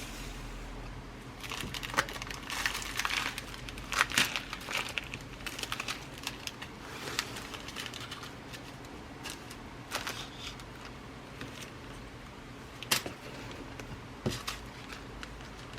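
Glass seed beads and their packaging being rummaged through by hand: busy rustling and crinkling with sharp clicks during the first few seconds, then sparser handling with single sharp clicks, the loudest in the last few seconds.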